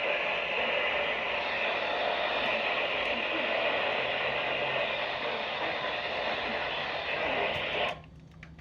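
Radio receiver static: a steady hiss from an unmodulated or weak-signal channel, which cuts off suddenly near the end as the audio drops away.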